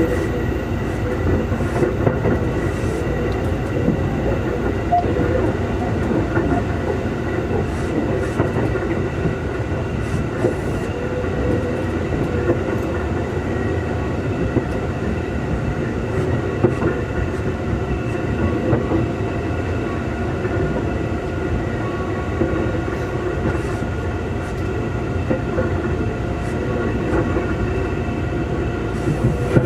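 Keikyu 2000 series electric train car DeHa 2052, heard from inside the car while running: a steady rumble of wheels on rail and a light clickety-clack, with a whine that holds one pitch the whole time.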